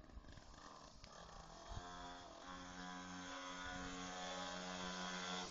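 Small engine of a mini dirt bike running, holding a steady pitch that comes in about two seconds in and grows gradually louder.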